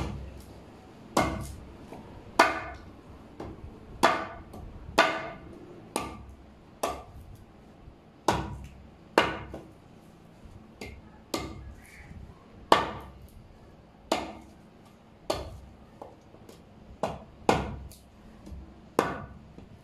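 Tongkat ali root, still fresh and wet, being chopped by hand with a blade: a steady series of sharp woody strikes, about one a second, each with a short ring.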